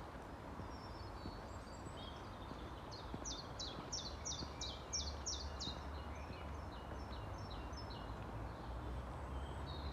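A small songbird singing runs of short, high, falling notes, about four a second, the longest run starting about three seconds in, over a low steady rumble.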